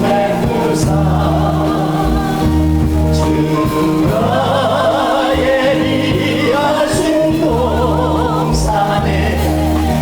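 Choir singing a gospel hymn with instrumental accompaniment: sustained, wavering sung notes over steady low bass notes.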